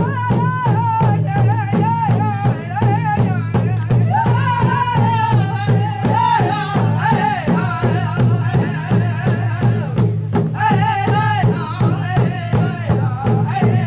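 Ojibwe drum group performing: a steady drumbeat under high-pitched singing, with the voices pausing briefly about ten seconds in.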